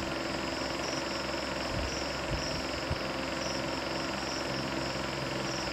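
Steady background hum and hiss, with a few faint taps a couple of seconds in.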